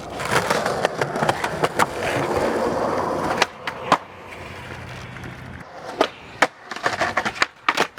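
Skateboard wheels rolling over concrete for about three and a half seconds, followed by several sharp clacks and knocks of the board as it hits and lands.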